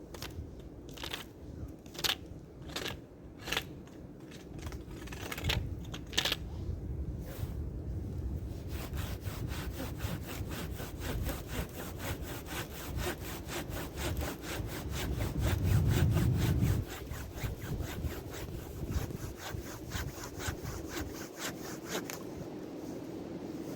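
Hand saw cutting through a dead stick: a few slow, uneven strokes, then steady back-and-forth strokes at about four a second that stop near the end.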